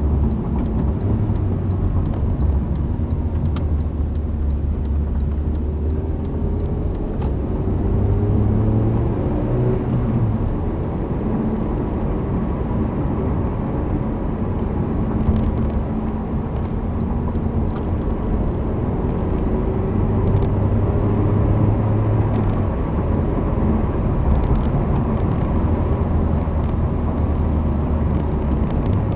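Honda Civic's engine and tyre roar heard from inside the cabin while driving, a steady low hum whose pitch climbs now and then as the car speeds up.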